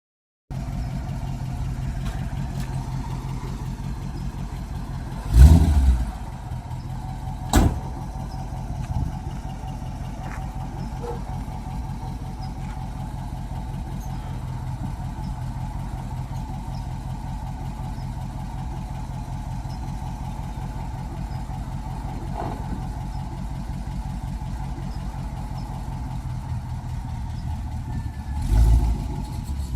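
1956 Ford F-250's engine running steadily as the truck is driven, with a loud low thump about five seconds in, a sharp knock a couple of seconds later, and another loud thump near the end.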